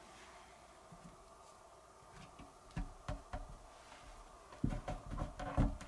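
A 3D-printed plastic port flange being set into the hole in an MDF subwoofer box and pressed down by hand: quiet at first, then a few dull knocks that come thicker and louder over the last second or so.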